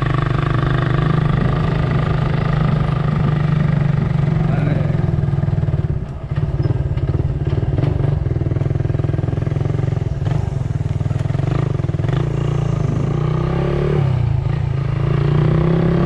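Motor vehicle engine running steadily while travelling, easing off briefly about six seconds in and changing pitch near the end.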